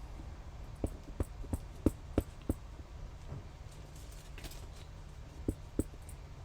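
Light tapping and clicking of craft stamping tools on a tabletop: six quick taps about three a second, then two more near the end.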